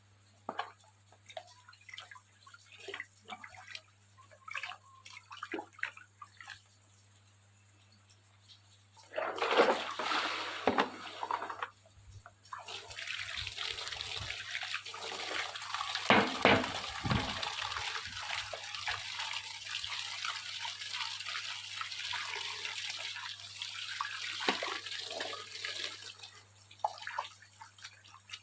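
Light scattered clicks of handling, then water running steadily from a tap for about fourteen seconds, with louder splashing in the middle and a short burst of water about ten seconds in.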